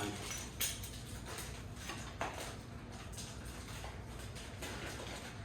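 A few light knocks and clicks of small metal tools and chair parts being handled, the clearest about half a second in and again at about two seconds.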